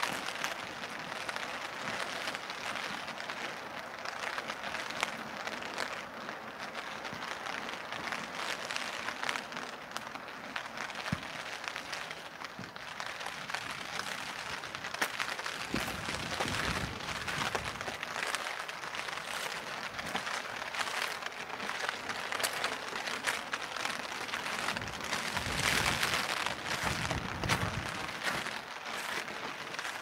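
Steady rain pattering on a clear plastic umbrella overhead: a dense crackle of many small drop hits. Low rumbles come in about halfway through and again near the end.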